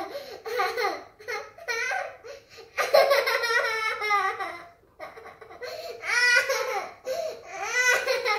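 A toddler laughing hard, in several high-pitched fits with short breaks between.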